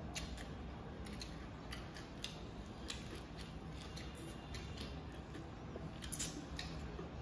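Close-miked eating: soft, irregular mouth clicks and smacks of chewing and eating noodles, about two or three a second, over a low steady hum.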